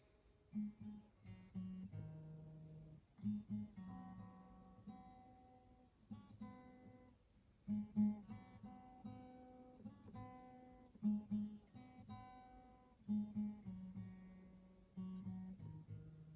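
Acoustic guitar being strummed and picked, chords struck every second or so and left to ring between strokes.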